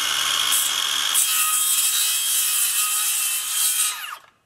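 Cordless circular saw running at full speed and cutting through the armored hide and backbone of a plecostomus, with a steady high whine under load. Near the end the trigger is released and the motor winds down to a stop.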